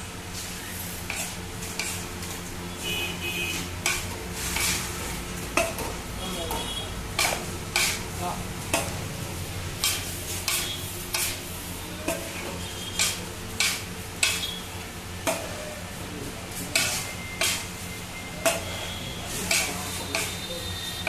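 Kitchen work noise from making gazak: steel pans and utensils being stirred and knocked, with sharp knocks about once a second over a steady low hum.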